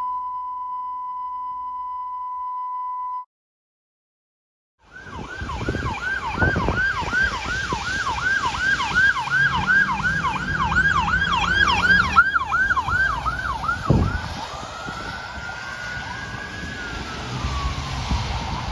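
A steady electronic beep tone for about three seconds, then a short silence. Then a fire-department emergency vehicle's electronic siren on a fast yelp, about two to three sweeps a second, switching later to a slow rising and falling wail, over traffic rumble.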